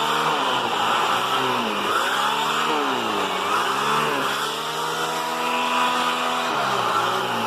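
Vacuum cleaner motor running with its suction hiss while an attachment works over bedding; the motor's pitch sags and recovers several times as the nozzle is pressed against the fabric.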